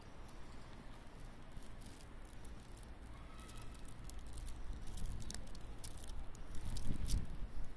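Handling noise on a handheld phone microphone: a low rumble with scattered light clicks and rustles, swelling about seven seconds in.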